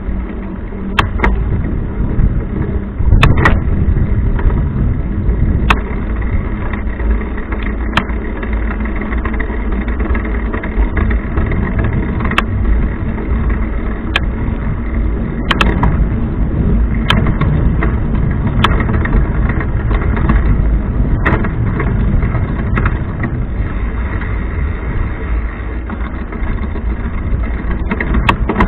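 Bicycle chain and rear derailleur running with a steady grinding noise and sharp ticks every second or two: the noise of a badly adjusted gear shift.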